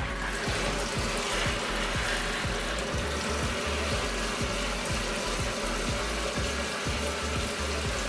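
Shower head spraying water onto clothes in a portable washing machine's plastic wash tub, filling it for a rinse cycle: a steady hiss of running water.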